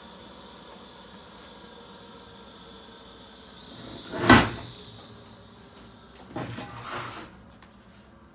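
Steady electric buzz from the TIG welding setup during a final tack. A single loud metal clunk comes a little over four seconds in, and a short clatter of metal knocks about six to seven seconds in. The buzz stops near the end.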